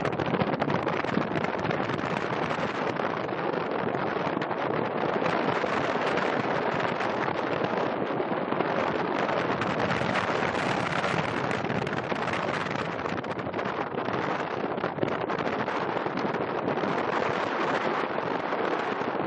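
Steady rushing wind buffeting the microphone, with a crackly texture and no distinct engine tone.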